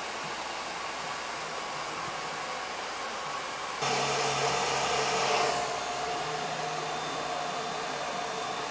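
Handheld hair dryer blowing steadily. About four seconds in it gets suddenly louder, with a steady hum in it.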